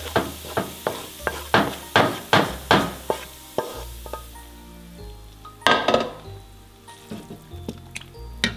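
A cooking utensil knocking and scraping in a pan of aromatics frying in oil (spring onion, candlenut and garlic), with a sizzle. There are about two to three strokes a second until about three and a half seconds in, then one louder, longer scrape about six seconds in.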